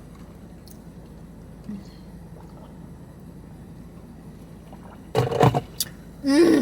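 Steady low hum inside a car. About five seconds in there is a short loud vocal sound, and a brief voiced sound follows at the very end.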